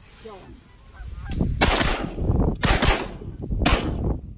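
Goose honks, then a volley of shotgun shots, about five in quick succession starting about a second in.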